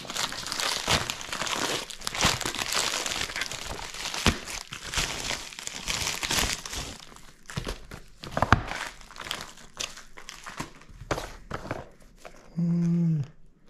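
A plastic mailer bag being torn open and crinkled by hand. The crinkling is dense for about seven seconds, then thins to scattered crackles.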